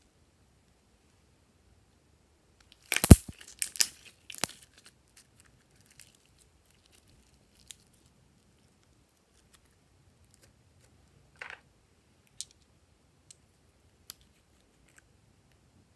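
Purple glitter slime being stretched and squeezed by hand, giving a burst of sharp crackling pops about three seconds in, then a few faint scattered clicks.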